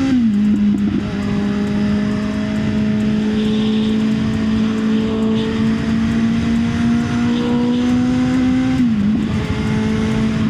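Kawasaki Z900's inline-four engine running at highway speed, its revs climbing slowly, with a brief dip and recovery about nine seconds in, over a steady rush of wind.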